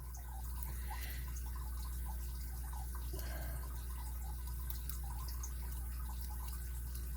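Faint, scattered small metal ticks and clicks as a retaining clip is worked off the back of a padlock's plug, over a steady low hum.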